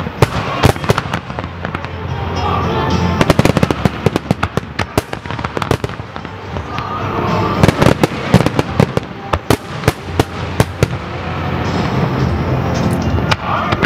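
Aerial firework shells bursting in a rapid run of overlapping bangs and crackles, thinning out near the end.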